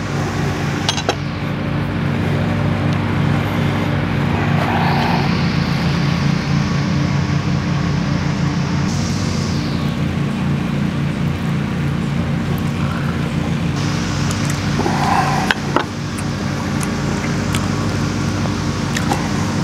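A lawnmower's small engine running at a steady speed, with a few faint clicks of a knife on a wooden cutting board.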